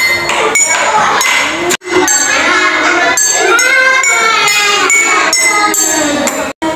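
Drinking glasses filled with different amounts of water tapped with a stick, giving ringing clinks at different pitches, over children's voices.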